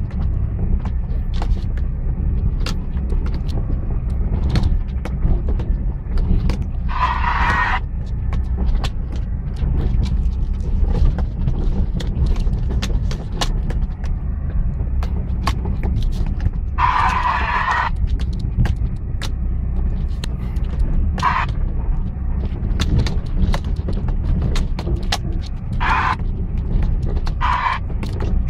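Inside the cab of a 4x4 crawling over a loose rocky trail: a steady low rumble of engine and tyres, with frequent knocks and rattles. A few short hissing bursts of about a second stand out, a couple of them around a quarter and three fifths of the way through.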